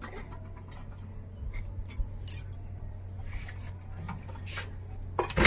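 Wet squishing of a hand working ground urad dal batter and water in a steel bowl, with light clinks of steel utensils and bangles, under a faint steady hum; a louder clatter of steel dishes near the end.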